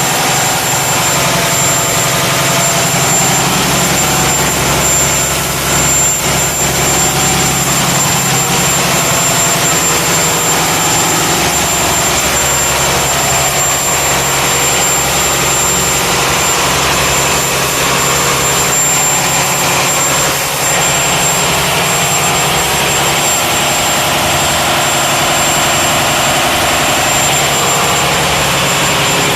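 Volvo six-cylinder four-stroke marine engine running steadily, with a thin high whine throughout.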